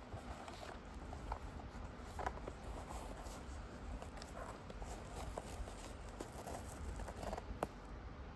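Handling noise from a Nike Lunar Gato II indoor soccer shoe: its knit upper and lining rustling, with scattered small clicks and taps as hands flex and pull the collar open.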